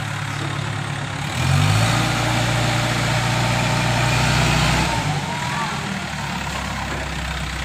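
Diesel engine of an ACE 14XW pick-and-carry mobile crane, revving up about a second and a half in. It holds the higher speed for a few seconds, then drops back to a lower steady run near the five-second mark.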